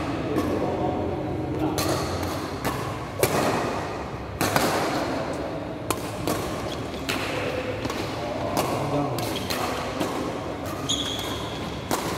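Badminton rally: rackets striking the shuttlecock in sharp cracks, irregularly about once a second, with thuds of players' feet, echoing in a large hall.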